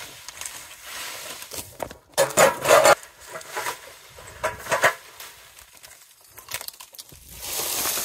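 Short hand broom sweeping dry fallen leaves and twigs across a gravel path and into a dustpan, in scratchy, crackling strokes, the loudest about two to three seconds in. Near the end, rubber boots scuff on the gravel close by.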